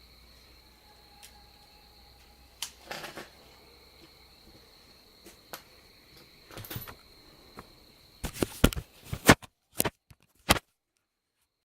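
Crickets chirping faintly as one steady high tone, with a few scattered small clicks. Near the end comes a quick run of louder clicks and knocks, then the sound cuts off to silence.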